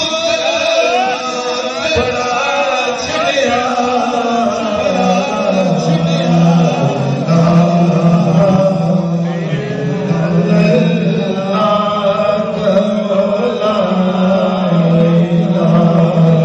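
Male vocalist singing devotional verses through a microphone and PA, his voice sliding and ornamenting the melody. From about five seconds in, a steady low drone sounds beneath the voice.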